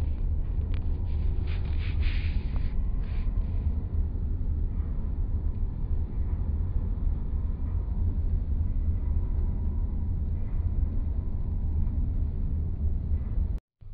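Steady low rumble of road and wind noise inside a car driving at highway speed, with a few short clicks and rattles in the first few seconds. It cuts off abruptly near the end.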